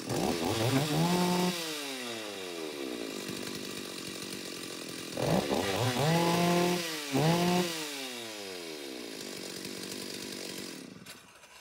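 Stihl MS 381 two-stroke chainsaw engine idling and revved to full throttle three times, each rev held briefly and then dropping back to idle, before the engine is switched off just before the end. It runs cleanly after its carburetor was cleaned.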